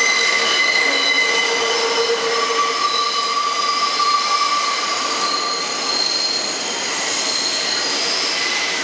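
R68A subway train coming into the station with its steel wheels squealing on the curved track. It is a loud, steady, high-pitched squeal made of several held tones over the running noise of the cars, and the tones shift as it comes in.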